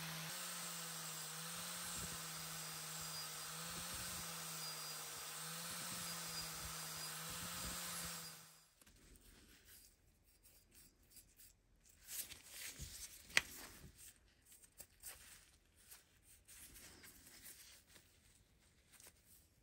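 An electric angle grinder with a thin cutting disc runs at a steady pitch, cutting the slots between the teeth of a steel axe head, and stops about eight seconds in. After that come faint rubbing and handling sounds from gloved hands on the metal head, with one sharp click.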